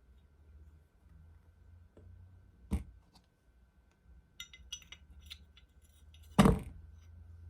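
Metal parts of a Glock 21 pistol handled during reassembly: a sharp click about three seconds in, a few light metallic clinks a little later, and a louder knock near the end as a part is set down or fitted.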